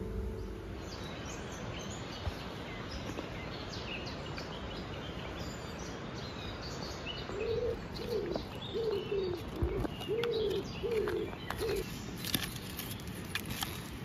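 Songbirds chirping in the trees, joined about halfway through by a pigeon cooing a steady run of six or seven low notes, over a steady outdoor background hush.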